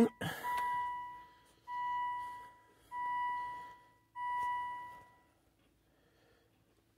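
Volvo V70 dashboard warning chime: four pure, evenly spaced tones about 1.2 s apart, each fading out, sounding while the driver's door is open with the key in the ignition. A faint steady hum lies beneath, and the chimes stop about five seconds in.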